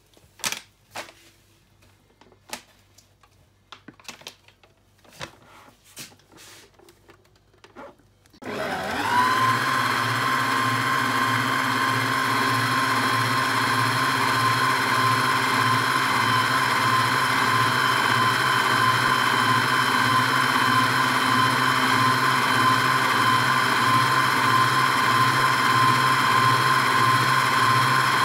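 A few faint taps and clicks, then about eight seconds in an electric stand mixer switches on: its motor whine rises quickly and settles to a steady pitch as the balloon whisk beats the egg-and-sugar cake batter in a steel bowl.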